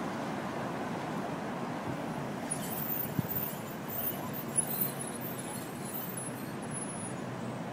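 Steady street traffic noise, with a few faint knocks and some faint high-pitched chirping tones through the middle.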